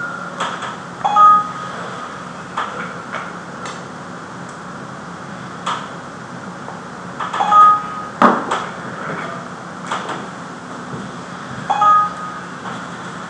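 Fabric cutting machine giving a steady low hum, with scattered clicks and knocks. Three louder knocks, about a second in, past the middle and near the end, each end in a short metallic ping.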